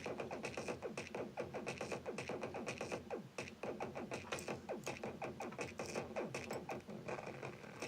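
Teenage Engineering PO-12 rhythm pocket operator playing a fast electronic drum pattern: rapid clicky hits with many short falling-pitch zaps, repeating steadily through its small built-in speaker.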